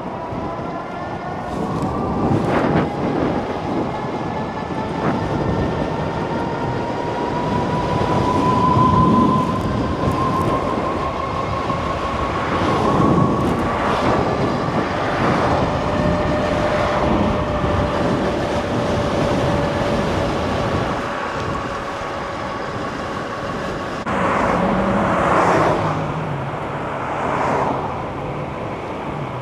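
Riding an electric bike: wind rushing over the microphone and road noise, with a steady whine that slowly rises in pitch and loudness that swells and eases several times.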